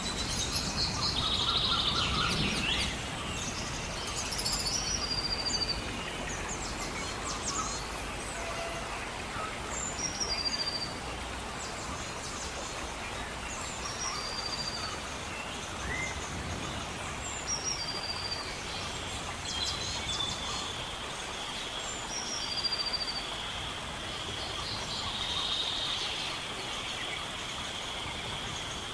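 Birds chirping, one repeating a short high call every few seconds, over a steady background hiss. The chirping is busiest in the first couple of seconds, and a thin steady high tone joins in over the second half.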